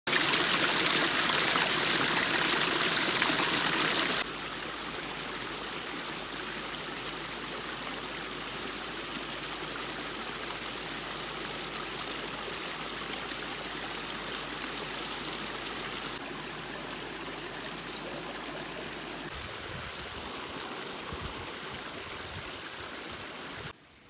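Spring water running and trickling over rocks in a small stream, loud for the first four seconds, then quieter and steady.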